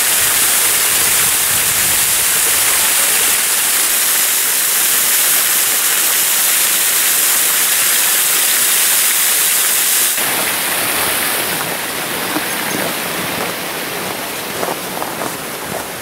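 Small waterfall spilling over a stone weir into a pool: a loud, steady rush of falling water, which turns a little quieter and duller about ten seconds in.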